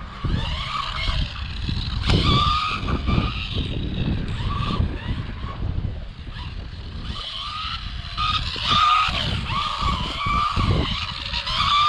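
Rlaarlo AMX12 1/12-scale electric RC buggy being driven hard: its motor whine rises and falls in short bursts with the throttle, over steady tyre and surface noise as it slides.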